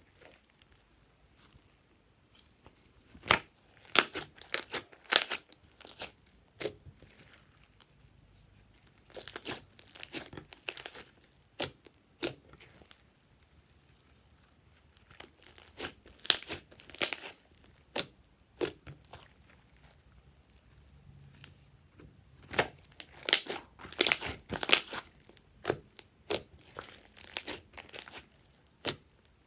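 Slime being squeezed and stretched by hand: clusters of sticky clicks and crackles, broken by short pauses.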